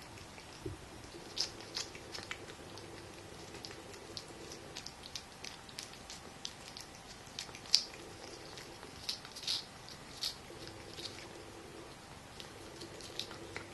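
Cat licking Churu lick-paste from a squeeze tube: quick, irregular wet tongue clicks and smacks. A few louder smacks come about eight to ten seconds in.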